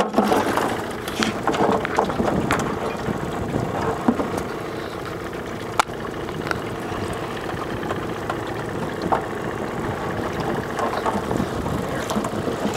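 Boat motor idling steadily, with a few sharp knocks and clicks, the loudest about six seconds in.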